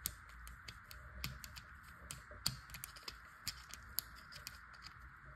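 Faint, irregular small clicks and scrapes of a small flat screwdriver against the coin-cell battery and plastic housing of a Bosch e-bike mini remote as the battery is pried out, over a faint steady hiss.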